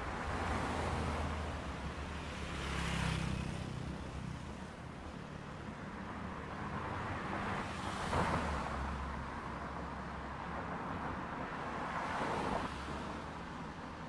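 Road traffic: a steady low rumble with cars passing by, swelling and fading three times a few seconds apart.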